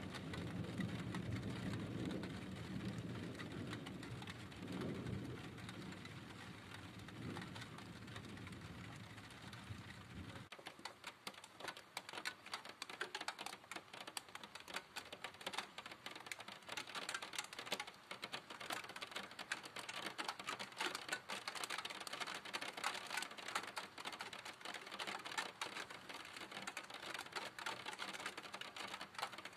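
A low rumble of thunder swells and fades for about ten seconds, then cuts off abruptly. After that comes a dense, fast patter of raindrops on a hard surface, which grows heavier from about fifteen seconds in.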